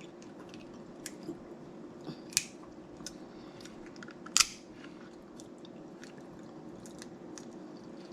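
Snow crab leg shells being cracked open, with two sharp cracks about two seconds apart among small clicks and crinkles of shell.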